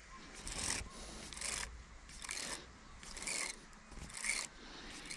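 Baitcasting reel being cranked slowly during a lure retrieve, with a short rasping swish about once a second, about five in all, in time with the turns of the handle.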